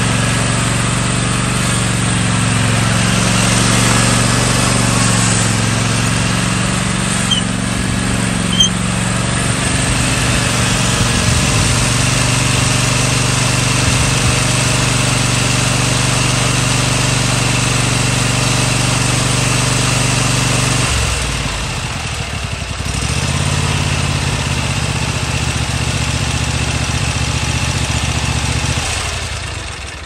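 Toro TimeCutter zero-turn riding mower's engine running; its note drops and changes about two-thirds of the way through, and it cuts off near the end.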